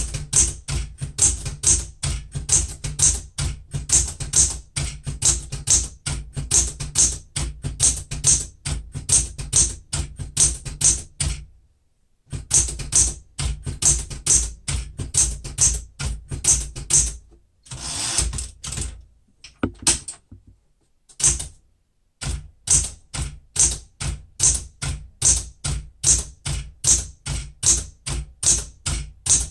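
A 1970 Smith-Corona Super Sterling manual typewriter being typed on at a steady pace, its typebars striking the platen several times a second. There are brief pauses about twelve and twenty-two seconds in.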